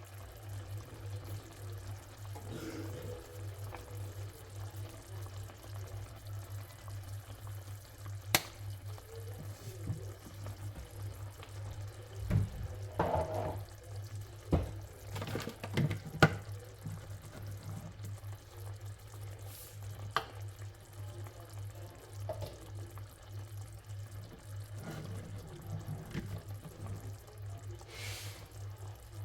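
Steady low hum with scattered clicks and knocks, most of them in a cluster about twelve to sixteen seconds in.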